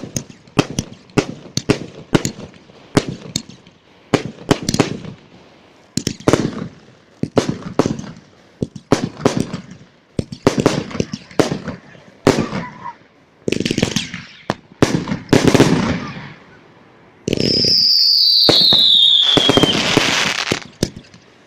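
Fireworks going off: a rapid series of sharp bangs, each with a trailing crackle, over about the first sixteen seconds. After that comes a few seconds of loud hissing with a whistle that falls in pitch.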